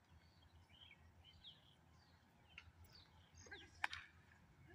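Faint open-air ambience with scattered short bird chirps, and a single sharp click near the end.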